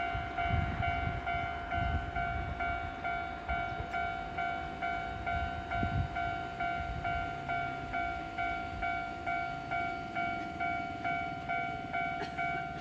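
Japanese level-crossing electronic warning bell ringing steadily at about two strokes a second, while a Nankai Main Line train rumbles past through the crossing in the first half.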